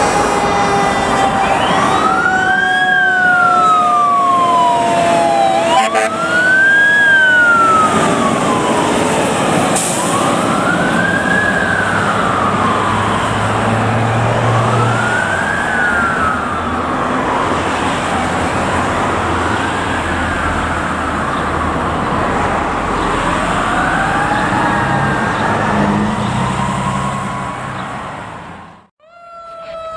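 Fire engine's electronic siren wailing, its pitch rising and falling about every four seconds, over a lower siren tone that slowly falls during the first few seconds. The sound fades out near the end.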